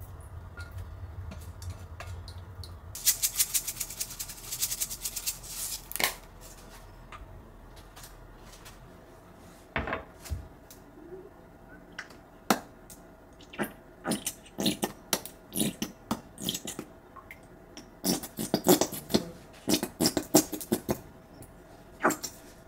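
Kitchen handling sounds. A low hum stops about three seconds in, then tongs scrape and click quickly against a frying pan as food is served onto a plate. After that come scattered taps and clicks, and near the end a cluster of squelching clicks as a mustard squeeze bottle is squeezed out.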